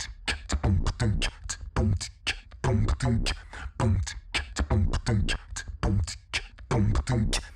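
A beatbox-style intro beat: a deep kick about twice a second with sharp snare and hi-hat hits between them, stopping abruptly at the end.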